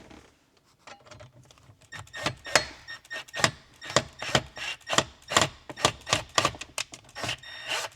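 A run of irregular sharp clicks and taps, about two or three a second, starting about a second in. A screw is being worked into a pilot hole that is a little too tight.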